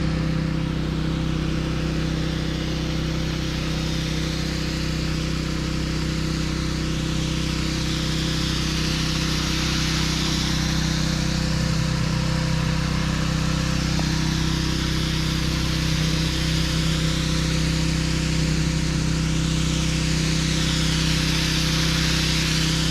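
Engine of a sealer spray rig running steadily, with the hiss of oil-based sealer being sprayed over it. The hiss swells and fades in slow sweeps every few seconds.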